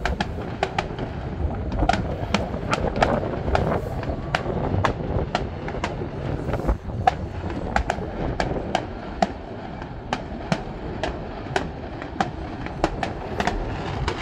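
Distant fireworks display going off: a long run of sharp pops and bangs, two or three a second, over a steady low rumble.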